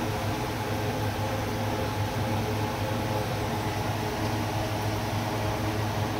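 Steady machine hum: a low drone with several steady tones above it over a hiss, unchanging throughout.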